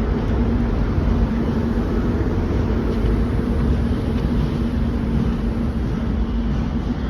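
Steady factory machinery noise: an even, loud rumble with a constant low hum running underneath.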